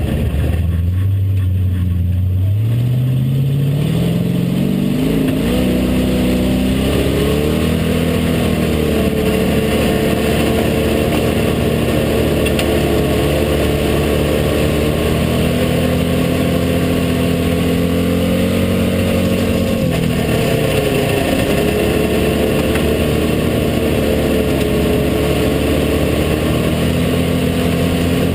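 Hobby stock dirt-track race car's engine heard from inside the cockpit, pulling up from low revs over the first few seconds, then rising and falling with the throttle as it runs around the track.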